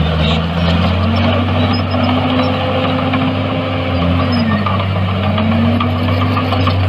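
Heavy diesel earthmoving machinery running steadily. The engine note rises about a second in, dips briefly at about four and a half seconds, then climbs back.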